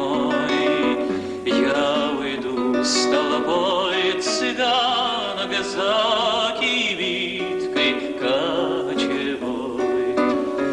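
A man singing a Russian romance, held notes with a wide vibrato, to acoustic guitar accompaniment.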